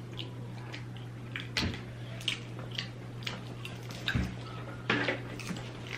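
Close-up eating sounds: chewing with short wet lip smacks, about one or two a second, over a steady low hum.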